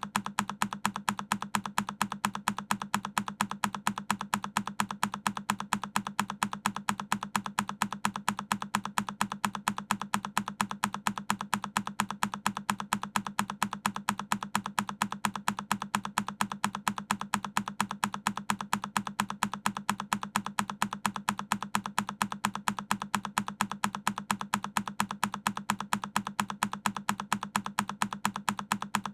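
A single key press on a Keychron K10 mechanical keyboard, looped: the same click repeats at an even pace, about four to five a second, each with a low thock under the click.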